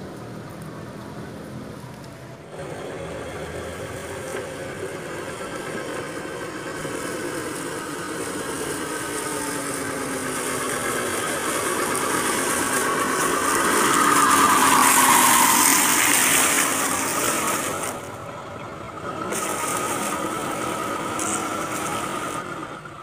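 Handmade 1:7-scale RC Fuso Canter truck driving over dry fallen leaves: its drive motor and gears whine with a slowly shifting pitch while the leaves crackle under the wheels. The sound jumps up a couple of seconds in, is loudest past the middle as the truck comes close, drops briefly, then picks up again.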